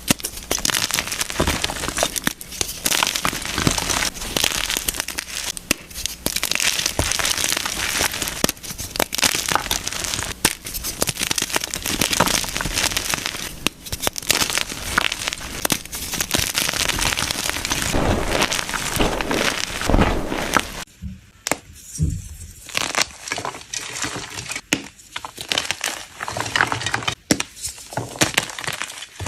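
Blocks of gym chalk crushed in a bucket: a dense run of crackling, crumbling crunches, then from about two-thirds of the way in sparser, separate crunches with short pauses between them.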